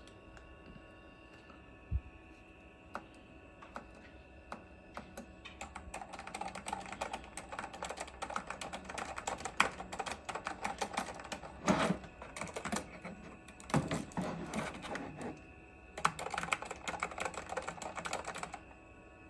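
Typing on a vintage Apple keyboard hooked to a Macintosh IIsi. A few lone keystrokes come first, then fast flurries of key clicks with a couple of heavier strikes partway through, and a short pause before a last flurry. A steady faint hum runs underneath.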